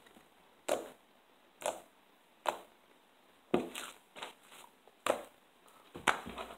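Slime being kneaded and pressed by hand on a wooden table: a series of short squishes, roughly one a second, with brief quiet between them.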